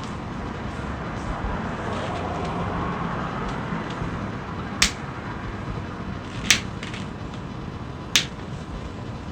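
Three sharp joint cracks from chiropractic adjustments, evenly spaced a little under two seconds apart, over a steady background hiss.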